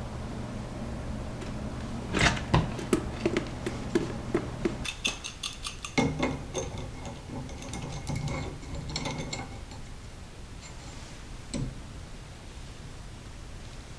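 Hand work on an old brass shutoff valve on a copper water pipe: a quick run of small mechanical clicks, then sharper metallic clicks and clinks as the valve and its parts are turned and handled. A steady low hum underlies the first few seconds.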